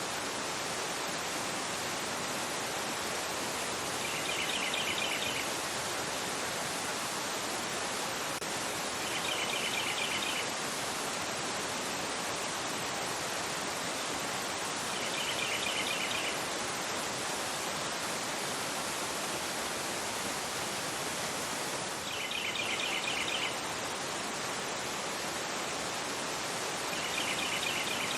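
River rushing over a rocky bed: a steady, full hiss of fast-flowing water. Over it, a bird gives a short burst of quick chirps five times, about every five to six seconds.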